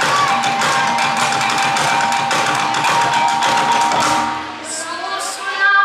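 Kulintang ensemble playing: a row of small tuned gongs struck in a fast run over a drum beat and hanging gongs, with a steady gong ring. The playing stops about four seconds in, and a voice starts near the end.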